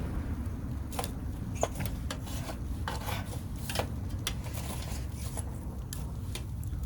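Scattered sharp clicks and scrapes of hard objects being handled, over a steady low rumble.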